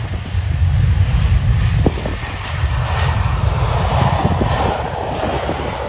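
Airbus A320-family airliner's twin jet engines running at high power as it rolls past on the runway: a loud deep rumble, joined in the second half by a rising hiss as the engines' exhaust turns toward the listener. Wind buffets the microphone.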